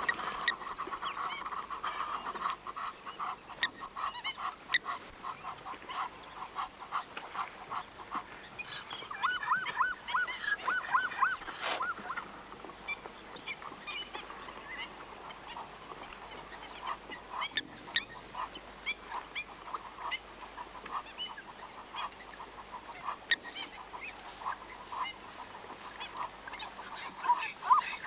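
Birds at a waterhole calling all through, a dense run of short repeated notes, among them sharp metallic 'tink' calls of blacksmith plovers (blacksmith lapwings) scolding in defence of their nest. A quicker run of looping notes comes about a third of the way in.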